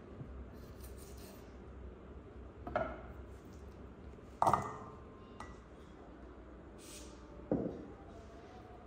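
A kitchen knife and garlic cloves being handled on a wooden cutting board: three separate knocks and clinks, the loudest about four and a half seconds in with a short metallic ring.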